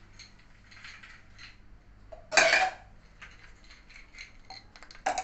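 Ice cubes dropped by hand into a tall drinking glass, clinking against the glass and each other. One loud clatter comes about two and a half seconds in, followed by lighter clicks and another clink near the end.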